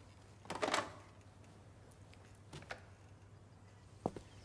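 Telephone handset set down on its desk phone, a brief clatter about half a second in, followed by a few faint ticks against quiet room tone.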